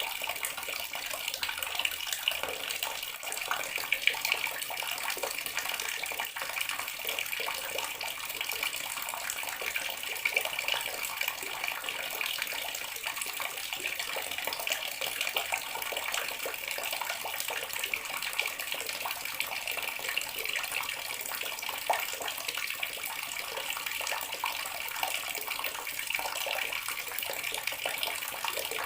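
Water running steadily from a bathroom tap, a continuous stream splashing without a break.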